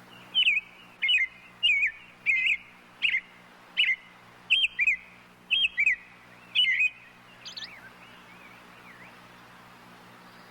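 A bird calling in a run of about ten short, sharp chirps, roughly one every half to two-thirds of a second, then a few fainter notes before it stops. A low steady hum runs underneath.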